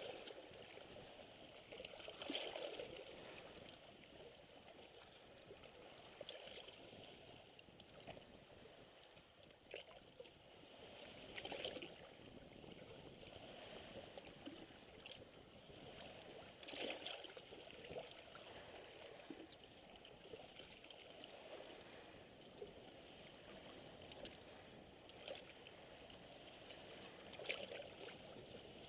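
Small sea waves lapping and splashing faintly against shoreline rocks, with a soft surge every few seconds.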